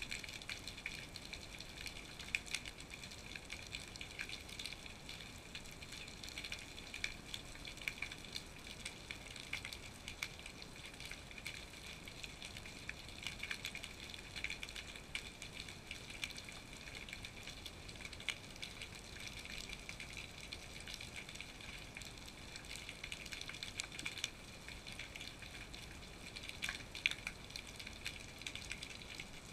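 Underwater ambience heard through a GoPro's waterproof housing: a steady, dense crackling of small clicks and pops, with a few louder clicks now and then.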